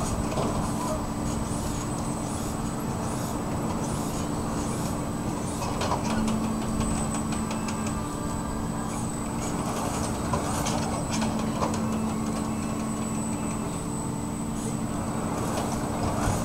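Steady low mechanical hum of a tower ride's drive machinery while its gondola travels up and down the mast, with a thin high whine and scattered light clicks.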